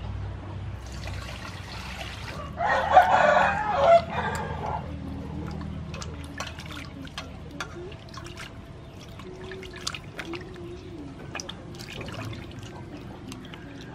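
A rooster crows once, about three seconds in, the loudest sound. After it, water splashes and sloshes in a steel bowl in many small sharp clicks as raw pork is washed by hand.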